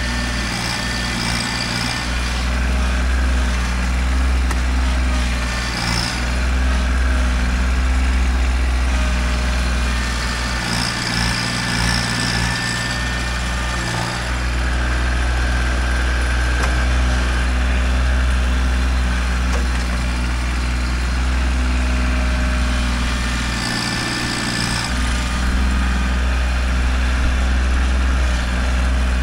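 Kubota tractor's diesel engine running steadily while working dirt, with a brief higher-pitched sound coming and going about four times as the engine note wavers.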